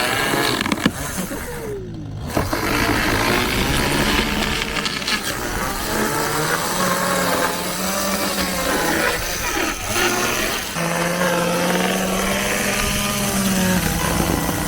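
Two-stroke chainsaw running under load, cutting through the wooden hull of an old boat, its engine pitch rising and sagging as the chain bites.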